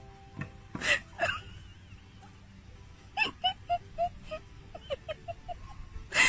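Small dog barking and yelping excitedly. There are a few sharp barks about a second in, around three seconds in and just before the end, with a quick run of short high yelps in between.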